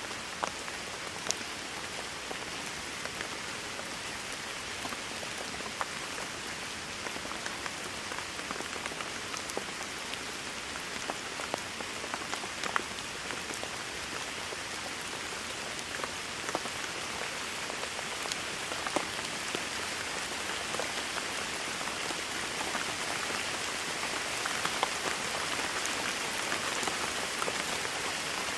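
Steady rain falling, a dense hiss with scattered sharper drips of individual drops hitting a surface, growing slightly heavier toward the end.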